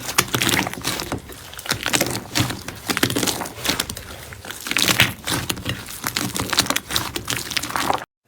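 Slime being squeezed and pressed, a dense run of irregular crackling clicks and squelches that cuts off suddenly near the end.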